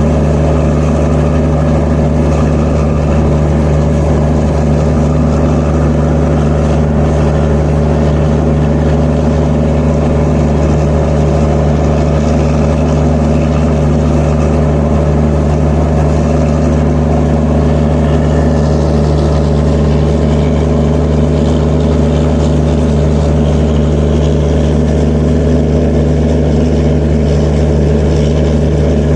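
Diesel generator set in an Indian Railways train's generator car, running at a constant speed: a loud, steady engine drone with a deep hum.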